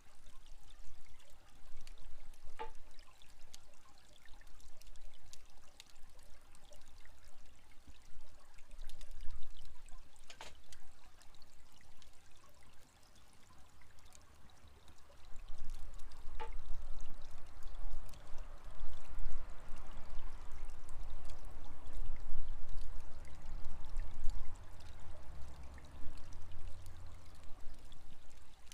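Steady pouring of water running from a horizontal well. A bamboo shishi-odoshi knocks twice, with a short hollow ring, about 2.5 seconds in and again about 16 seconds in. Scattered small crackles come from the campfire.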